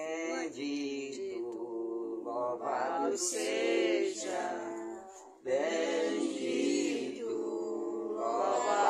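Unaccompanied singing of a slow Portuguese Catholic devotional hymn, with long drawn-out notes and a brief break about five seconds in.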